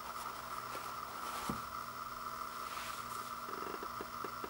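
Toilet paper rolls being set down and arranged on a wooden floor: a soft thump about a second and a half in, then light paper handling and a few small clicks, over a steady background hum.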